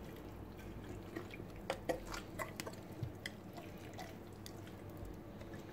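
Faint, irregular wet squelches and small clicks of a hand rubbing a chermoula spice marinade into raw chicken pieces in a glass bowl.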